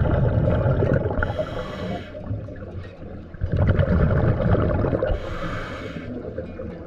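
Scuba diver breathing through a regulator underwater: two breath cycles, each a low rumble of exhaled bubbles followed by a short hiss of the regulator.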